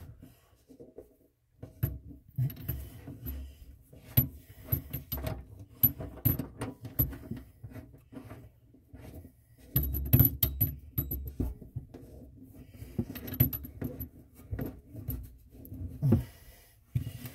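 Irregular metallic clicks, rattles and knocks as a braided stainless-steel faucet supply line and its fittings are handled and connected to the faucet under a sink. The busiest rattling comes in two spells, with a lull in between.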